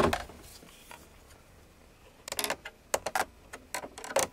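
A dull knock at the start, then a small screwdriver working a small screw in the plastic trim under the instrument cluster: scattered light clicks and ticks in the second half.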